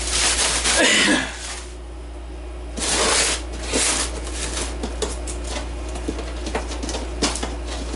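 Packaging being handled: a plastic bag rustles for about a second and a half, then a cardboard box is shifted on the wooden bench and picked at along its flaps, giving a run of small scratches and taps. A steady low hum lies underneath.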